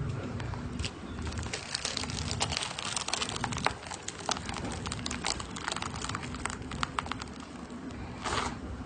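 Slime being squeezed and poked by hand, giving rapid clicking and crackling pops that are densest through the middle of the stretch, with a brief rustling burst near the end.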